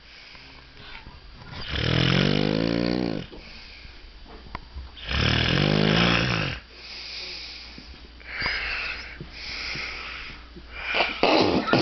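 Heavy snoring: two long, loud snores about two and five seconds in, each lasting over a second, followed by a couple of softer snoring breaths.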